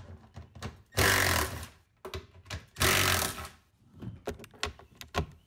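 A cordless power driver with a 10 mm socket spinning out the bolts of a Sea-Doo Spark's rear handle, in two short bursts about a second and three seconds in. Small clicks and rattles come between the bursts.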